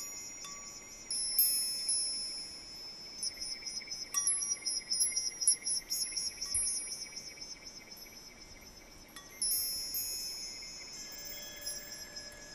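High-pitched metallic chimes tinkling: many overlapping notes struck irregularly, each ringing on, with new clusters of strikes coming in throughout.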